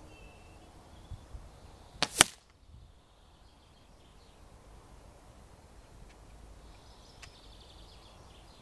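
A single shot from a Weihrauch HW97 KT .22 spring-piston air rifle, about two seconds in: a sharp crack heard as two close, quick reports.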